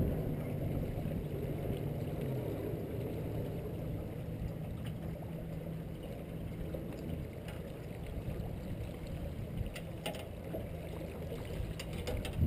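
A small boat's motor runs steadily with a low hum, under a wash of water and wind noise.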